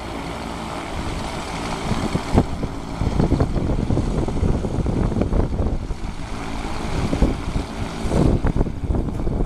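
Light propeller aircraft's engine running at low power, a steady low hum, with an uneven low rumble that grows louder from about three seconds in.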